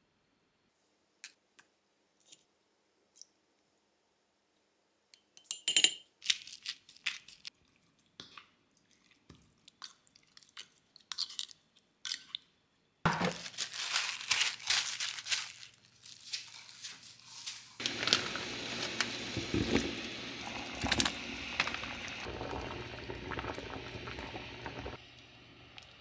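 Kitchen work sounds: scattered light clicks and knocks of utensils and containers, then about halfway through a steady low appliance hum starts with a loud hiss over it, dropping away shortly before the end.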